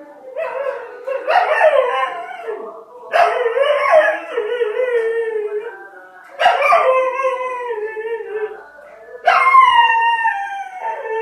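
A dog howling in four long, wavering calls, each lasting a couple of seconds with short pauses between them.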